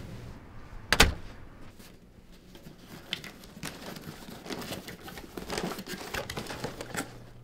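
Front door shutting with one sharp bang about a second in, followed by a few seconds of rustling, crinkling and small clicks from a delivered package being handled.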